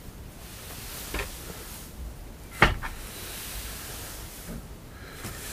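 Two knocks, a faint one about a second in and a much louder, sharp one about two and a half seconds in, over faint background rustle.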